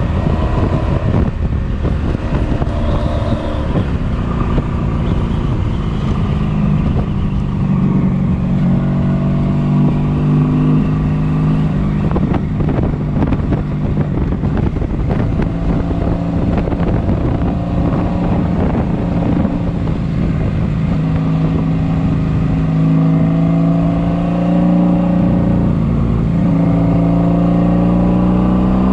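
1983 Honda Sabre 750's V4 engine running hard at highway speed, revved out to burn off carbon deposits. Its pitch climbs, holds steady for a stretch, then climbs again near the end, over heavy wind rumble on the microphone.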